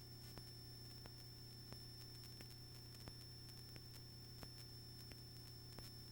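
Near silence: a faint steady low electrical hum and a thin high whine, with scattered faint clicks.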